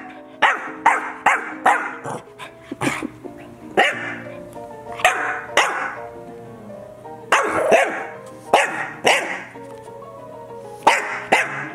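English bulldog puppy barking: a dozen or so short, sharp barks in irregular bursts, over light background music.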